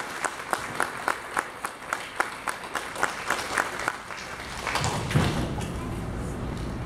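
Audience applauding, with distinct hand claps about three or four a second that die away about four seconds in. A dull thump comes about a second later.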